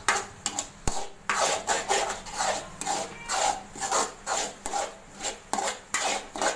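Metal spoon scraping the bottom of an aluminium kadai in quick, even strokes, about two to three a second, while scrambling egg so it doesn't stick.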